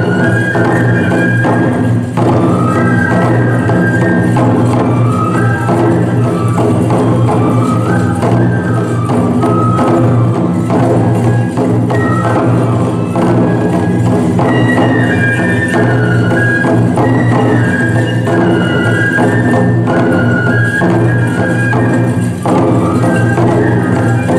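Traditional tiger-dance (toramai) festival music: bamboo flutes playing a stepping, repeating melody over continuous taiko drumming. Loud and steady, without a break.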